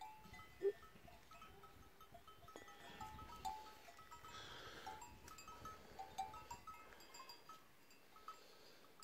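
Faint, scattered tinkling of livestock bells on a grazing herd, short ringing notes at several pitches. A brief low sound stands out about two-thirds of a second in.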